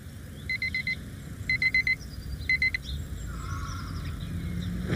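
Digital alarm clock beeping in groups of four quick, high beeps, one group about every second, stopping about three seconds in.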